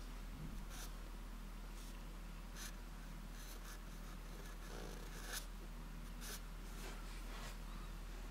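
Felt-tip marker writing on paper: short separate strokes, about one a second, over a low steady hum.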